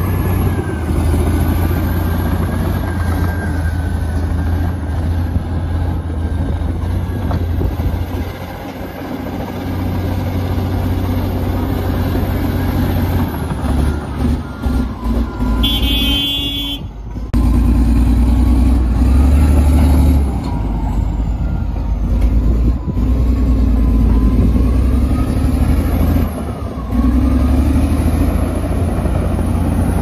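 Komatsu D85EX bulldozer's diesel engine running hard, a heavy low drone with a faint high whine that rises and falls. About halfway through there is a short beep, then the sound breaks off for a moment and comes back.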